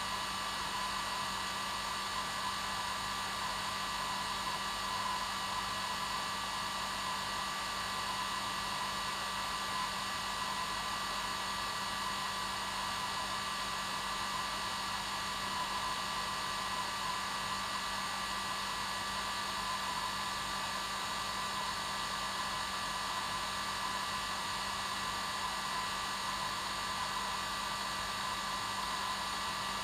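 Hair dryer running steadily at its normal setting: an even blowing hiss with a steady motor hum, played as white noise to help a baby fall asleep.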